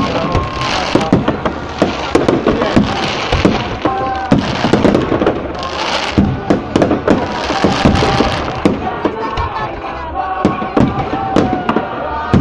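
Fireworks display: a rapid, uneven run of shell bursts and rocket launches going off, many bangs a second at times, with stretches of hissing crackle between them.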